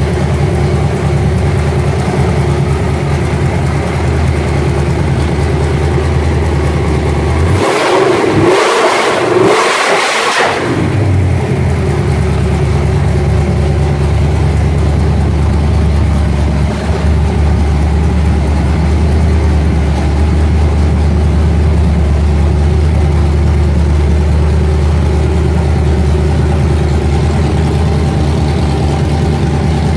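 355 small-block Chevy V8 with a solid roller cam, through a 3-inch X-pipe and Flowmaster 40 series mufflers, running at a steady idle. About eight seconds in, the throttle is blipped a few times quickly, and then it settles back to idle.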